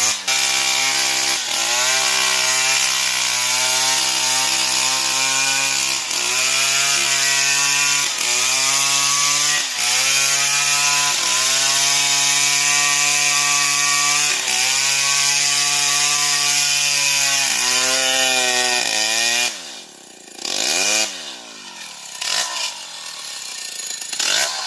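Stihl MS 070 two-stroke chainsaw cutting wood at high revs, its pitch dipping briefly several times as the chain bogs under load and then recovering. Near the end the engine revs drop away and it falls quieter.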